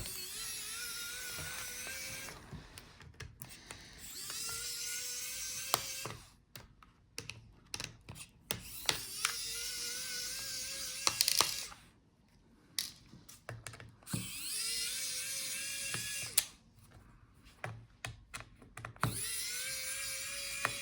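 Small electric screwdriver backing out the laptop battery's screws. It whirs in five short runs of about two seconds each, the pitch rising as it spins up and then holding, with light clicks and taps of screws and bit between runs.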